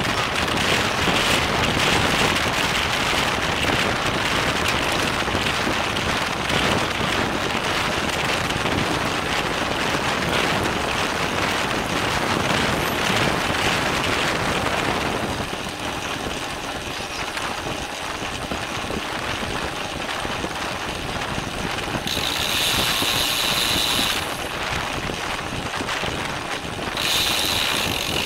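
Wind rushing over a bike-mounted camera's microphone, with tyre and road noise, as a road bike races. About halfway through it quietens, and twice near the end the rear hub's freewheel buzzes as the rider coasts.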